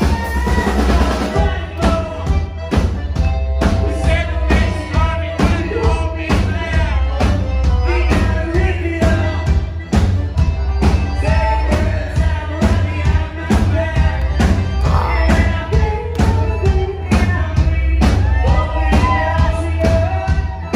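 Live band music: upright double bass, drum kit and accordion playing an up-tempo number, with a heavy bass and a steady beat.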